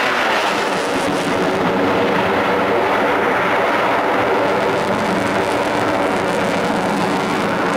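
F-16 fighter's Pratt & Whitney F100 turbofan at high power as the jet climbs away, a loud, steady rushing roar of jet noise.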